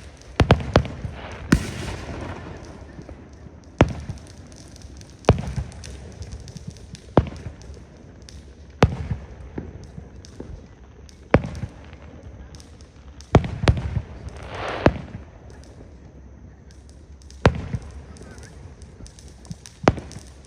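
Aerial fireworks shells bursting: a string of sudden sharp bangs, irregularly spaced one to three seconds apart, several trailing off in a low rumble. The bangs bunch together about a second in and again about two-thirds of the way through.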